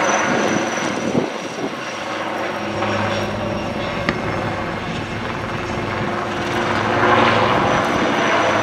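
Military helicopter flying a display pass, its turbine engine and rotor running steadily, growing louder about seven seconds in as it comes closer.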